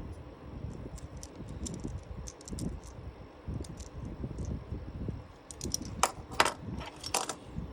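Batteries and small plastic parts being handled and fitted into an action figure's battery compartment: scattered light clicks and rattles over a low handling rumble, with a few sharp clicks about six to seven seconds in.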